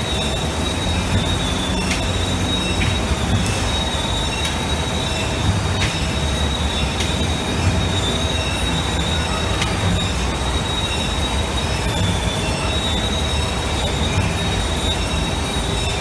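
Four-layer paper laminating machine running, a steady low rumble with a constant high-pitched whine over it and a few faint ticks.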